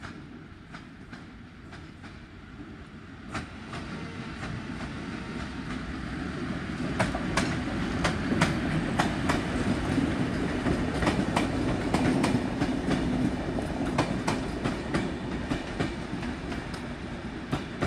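PKP Intercity EP07 electric locomotive and its passenger coaches passing, the rumble of the train building from about four seconds in. Sharp clicks of the wheels over the rail joints come thick and loudest as the locomotive and first coaches go by, and go on as the coaches roll past.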